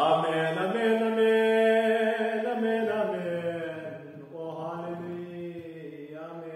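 A man singing solo in long, drawn-out notes, each pitch held for a second or more, loudest in the first few seconds and softer after about four seconds.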